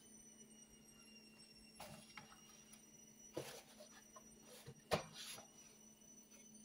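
Faint handling of a cardboard egg carton taken from a refrigerator shelf and opened: a few soft knocks and rustles, with a sharper tap about five seconds in, over a steady low hum.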